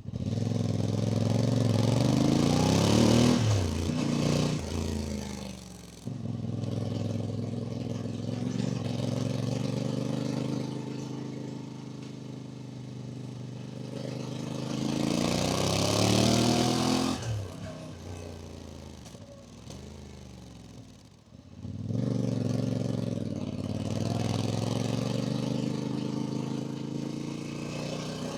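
Voge DS800X Rally's parallel-twin engine through its standard exhaust on the move. It revs up hard about three seconds in and again around sixteen seconds, dropping off in between. It falls away before picking up again from about twenty-two seconds.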